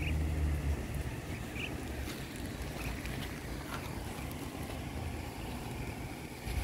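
Wind buffeting the microphone outdoors: a heavy low rumble for about the first second, then a steady rushing hiss. A few short, faint high chirps come through in the first three seconds.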